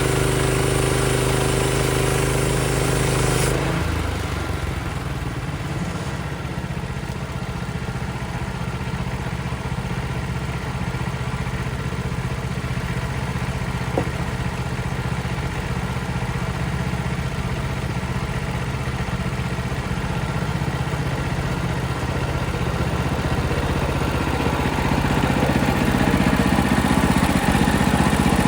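Small gas engine of a portable bandsaw mill running steadily. About three and a half seconds in, a louder hissing layer drops away and the engine carries on, growing slightly louder near the end.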